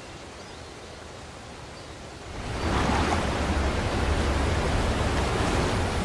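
Waterfall: a steady rush of falling water that grows much louder about two seconds in, with a deep rumble underneath.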